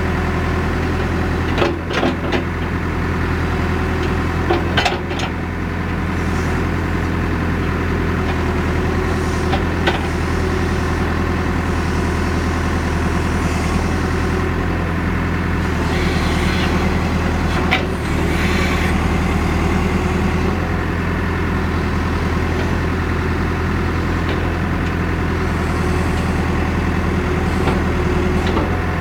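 Caterpillar 430D backhoe loader's diesel engine running steadily under the cab while the machine is worked. A few sharp clanks come about 2 and 5 seconds in, and a hiss rises between about 16 and 19 seconds in.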